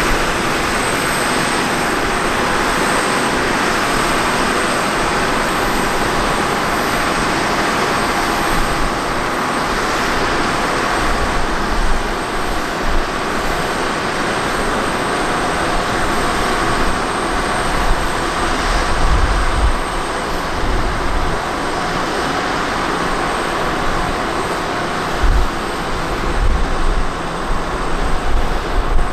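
Boeing 737-800's CFM56-7B jet engines running with a steady, loud roar and a faint steady high whine, with low rumbling surges about two-thirds of the way in and again near the end.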